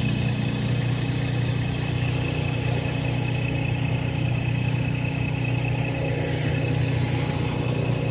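An engine running steadily at constant speed nearby, a low drone with a thin high whine over it.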